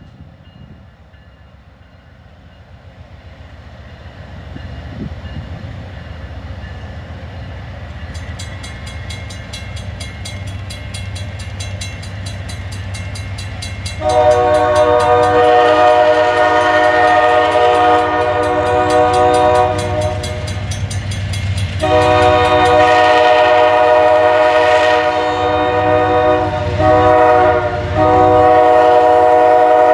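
Amtrak P42DC diesel locomotive rumbling louder as it gets under way. From about halfway through, its Nathan K5LA five-chime horn blows a loud chord, quilled in long blasts with a short gap and then brief breaks near the end.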